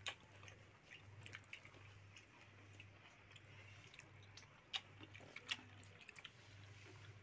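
Faint eating sounds at a shared meal: chewing and scattered small clicks and taps of plates and glasses, a few of them sharper, over a faint steady low hum.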